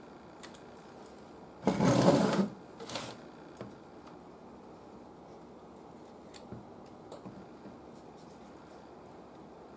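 Small handling noises at a workbench: a loud, noisy rustle lasting under a second about two seconds in, a shorter fainter one a second later, then a few light clicks.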